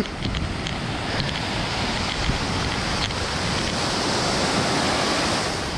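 Surf breaking and washing up a sand beach, a steady rushing noise, with wind on the microphone.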